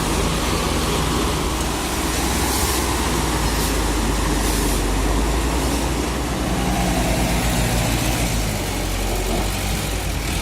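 Heavy truck engine running steadily, with brief hissing bursts about three and five seconds in.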